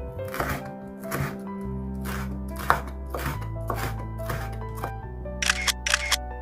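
Chef's knife slicing a red chili into strips and tapping the wooden cutting board, about two strokes a second, over background music. Near the end, a camera-shutter sound effect clicks four times in quick succession.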